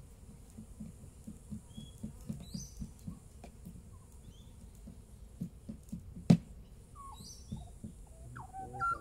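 Short high bird chirps over a run of soft low knocks and rustles, with one sharp click about six seconds in; near the end, rising and falling whistled calls begin.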